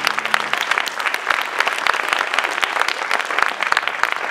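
Audience applauding, many hands clapping densely and steadily. A low held musical note fades out about half a second in.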